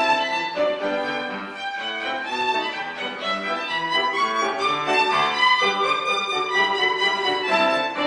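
Live violin playing a slow melody with piano accompaniment.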